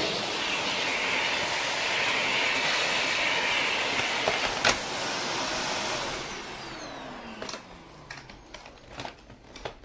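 Shark upright vacuum cleaner running with a steady rush of suction. About six seconds in its motor winds down, the whine falling in pitch, followed by a few clicks and knocks as the vacuum is handled.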